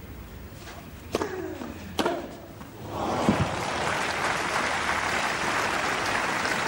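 Two sharp racket strikes on a tennis ball about a second apart, then a stadium crowd breaks into steady applause about three seconds in as the point ends.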